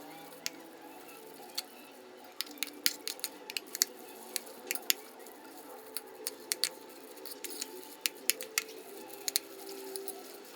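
A run of sharp, irregular clicks and taps, some in quick clusters, over a faint steady background.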